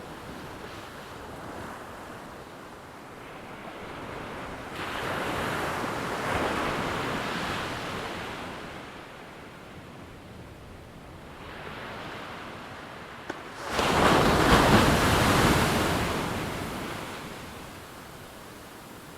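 Ocean waves breaking on a shore, in two surges. One wave builds and fades about five seconds in, and a louder one crashes suddenly about fourteen seconds in, then washes away over a few seconds.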